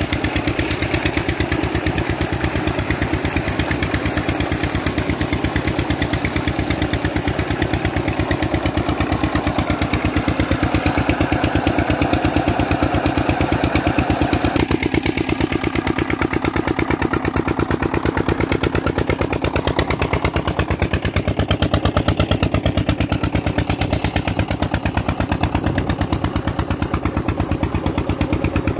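Diesel engine of a tubewell pump running steadily, with an even beat of about five pulses a second.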